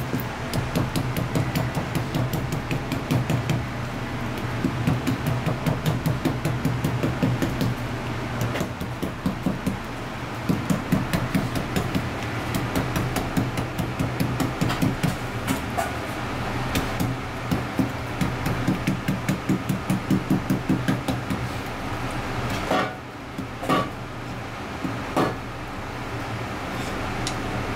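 Kitchen knife cutting devil stinger fish on a plastic cutting board, quick repeated strokes about three to four a second. Near the end the strokes stop and give way to a few separate knocks.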